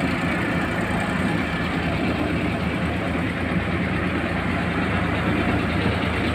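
JCB 3DX backhoe loader's diesel engine running steadily while its backhoe arm digs and lifts soil.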